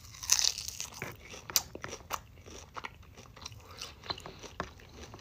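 A bite into a crisp piece of fried chicken, a loud crunch just after the start, followed by chewing with many short, irregular crunches.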